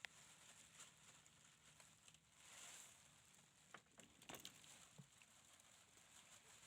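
Near silence: a faint steady high hiss, with a soft swell of noise about halfway through and a few faint clicks a little later.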